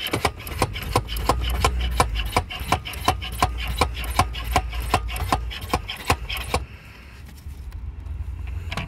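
Hand pump of a Sealey pressure brake bleeder being worked to pressurise the tank, a rhythmic rasping stroke about three times a second that stops about two-thirds of the way through. Wind rumbles on the microphone underneath.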